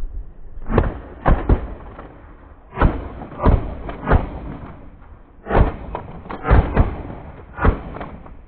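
Several shotguns firing in a ragged volley at a flock of decoying geese: about ten shots at uneven spacing, a few in quick pairs.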